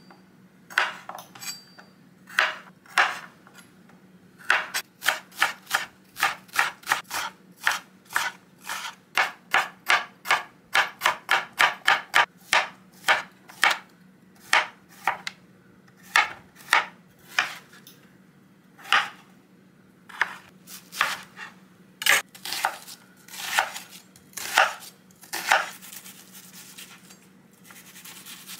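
Chef's knife slicing garlic, Korean zucchini and onion on a cutting board: a long series of sharp knife strikes against the board, irregular, with quick runs of strokes and short pauses between them.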